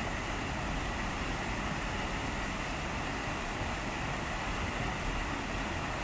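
A waterfall pouring over a stone weir into a foaming plunge pool, making a steady, unbroken rush of water.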